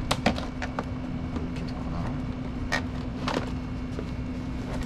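Sharp plastic clicks and knocks, a handful spread through the few seconds, as the parts of a plastic bait bucket are handled and a perforated holder is lifted off its rim, over a steady low hum.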